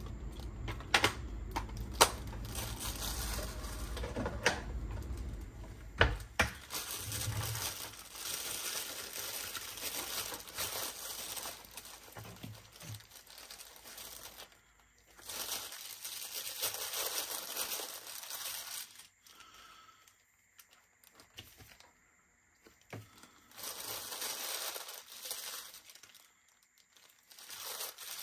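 Crinkling, rustling handling noise in bursts with short pauses. There are a few sharp clicks and a low hum in the first six seconds.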